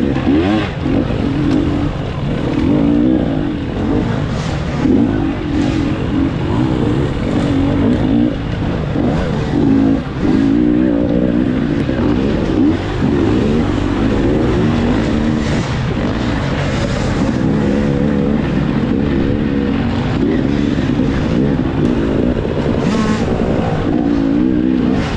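Dirt bike engine revving hard under load, its pitch rising and falling over and over as the throttle is opened and closed.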